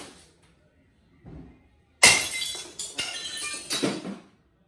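Glassware being smashed with a bat: a sharp, loud crash of breaking glass about two seconds in, then three more quick strikes with glass shattering and clinking, fading out before the end.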